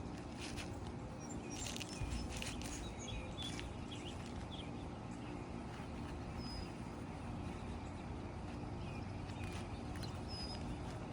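Scattered light knocks and scrapes from hand work on asphalt roof shingles, over a steady outdoor background hum, with a few short high chirps.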